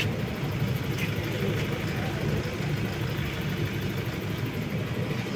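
A truck's engine idling steadily, low and even.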